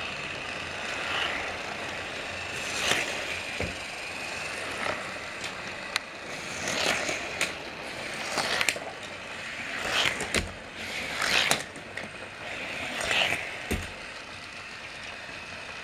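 Motorized Trackmaster toy train running along plastic track: a steady small-motor whir with rattling swells every second or two, and a few sharp clicks and knocks.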